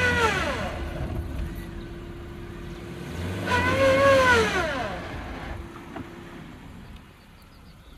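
Suzuki Jimny's four-cylinder petrol engine revving up and dropping back twice as the car claws up a steep muddy slope with its tyres slipping. The second rev, about three and a half seconds in, is the loudest, and the engine is quieter by the end.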